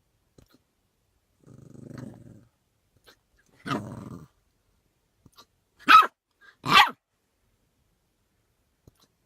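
A puppy with the hiccups growls low for about a second, then gives a short growl, then two short, loud barks less than a second apart.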